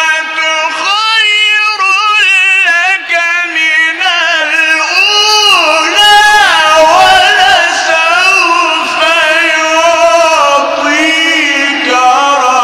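A man reciting the Quran in Arabic, chanted melodically with long, high ornamented runs whose pitch rises and falls.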